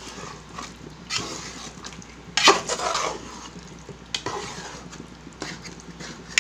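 A spoon stirring chicken roast masala in a cooking pan, scraping and knocking against the pan in several separate strokes, the loudest about two and a half seconds in.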